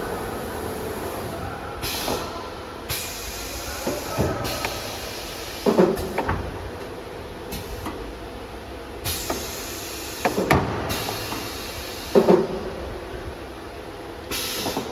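CNC nesting machine at work: a steady machine hum, broken by short bursts of compressed-air hiss from its pneumatics and several clunks and knocks. The loudest clunks come about six seconds in and again about twelve seconds in.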